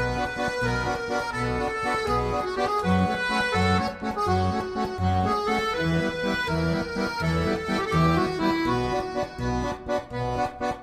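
Accordion music: a melody played over a steady, regularly pulsing bass-and-chord accompaniment.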